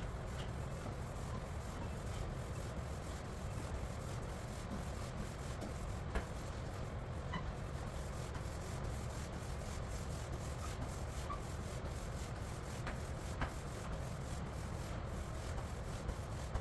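Floor roller spreading the first coat of amber-tinted polyurethane across a hardwood floor: a steady rubbing swish with faint scattered ticks.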